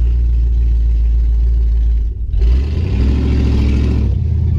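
Loud exhaust of an early-1980s hearse heard from inside the rear compartment. It runs steadily, drops off briefly about two seconds in, then picks up louder as the car accelerates.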